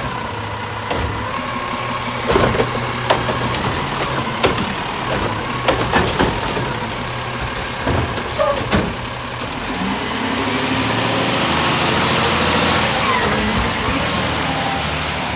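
Garbage truck engine running, with a string of sharp clanks and bangs through the first half, then a rush of noise that swells and fades in the second half.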